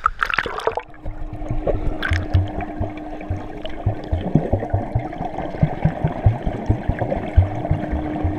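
A splash, then the muffled sound of a camera underwater: repeated low thuds as a child swims past kicking behind a kickboard, over a steady low hum.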